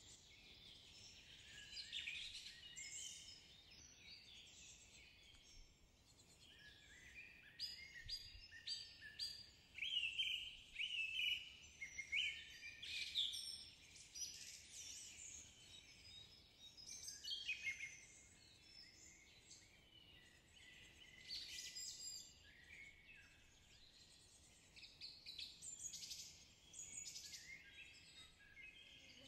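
Songbirds chirping and singing: a busy run of high, quick chirps and short warbled phrases that come in clusters, fairly faint.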